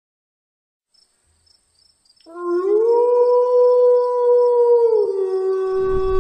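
A wolf howling: one long howl that starts about two seconds in, rises in pitch, holds, then drops to a lower steady note and carries on.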